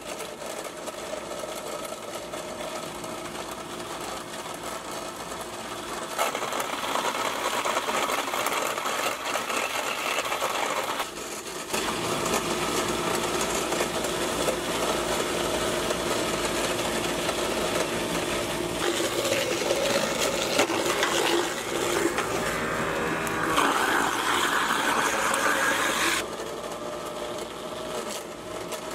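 Waste King quarter-horsepower garbage disposal grinding biochar chunks and kitchen scraps with water: a steady motor hum under a grinding rattle. It gets louder about six seconds in, dips briefly near the middle, and drops back a few seconds before the end.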